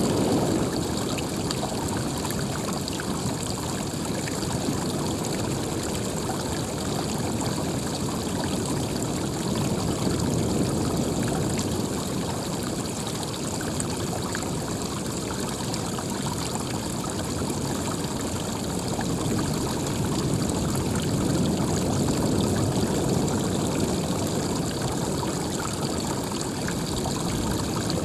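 Running water flowing in a steady rush, slowly swelling and easing in loudness.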